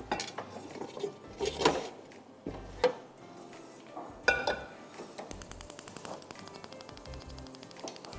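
Cookware clanking: a frying pan set down and shifted on a gas stove, four sharp knocks in the first four or so seconds.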